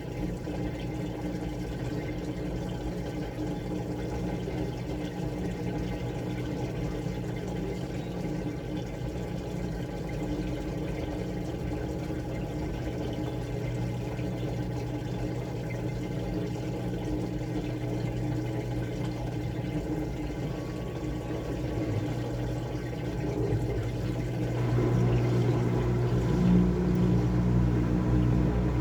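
Washing machine running, with water moving and a steady low pump and motor hum; it gets louder about 24 seconds in.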